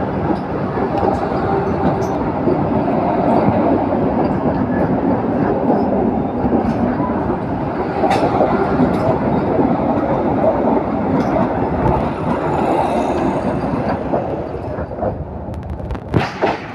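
Vande Bharat Express electric trainset passing at speed: a steady, loud rush of wheels on rail with light clicking over the rail joints. It dies away near the end, with two sharp clicks just before it finishes.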